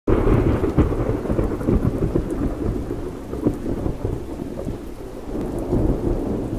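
Thunderstorm: heavy rain with a low, rumbling thunder underneath, loudest right at the start, with a couple of sharp cracks.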